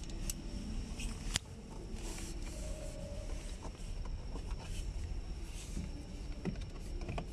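Hard plastic clicks and faint handling noises from a car dashboard air vent unit with an LED cable as it is worked into its dashboard opening, with two sharp clicks, one just after the start and one about a second and a half in, over a low steady hum.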